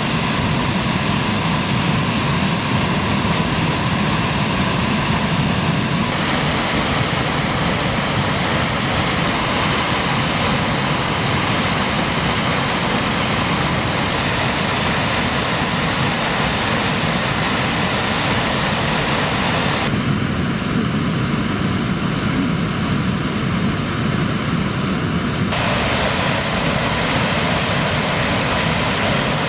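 Waterfall: a steady, loud rush of falling water, its tone shifting abruptly a few times.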